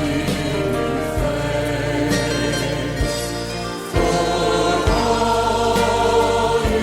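Gospel praise music: a choir singing sustained chords over a band, with a bass line that moves every second or so and occasional drum hits.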